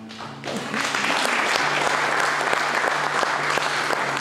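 Congregation applauding: dense clapping that swells in about half a second in, with an acoustic guitar playing underneath.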